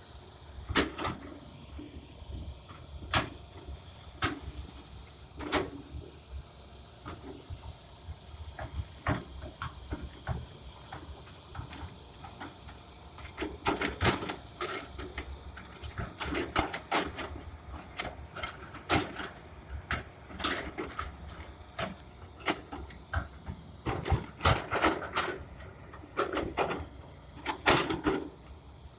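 John Deere excavator moving dirt: irregular knocks and clunks over a faint low engine rumble. The knocks come in busy clusters about halfway through and again near the end.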